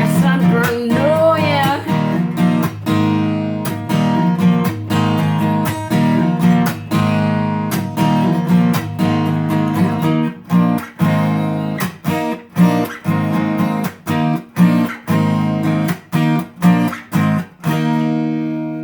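Acoustic guitar strummed chords closing out a song, with the last sung note trailing off in the first second or two. The strokes grow sparser and more clipped toward the end, and a final chord is left ringing.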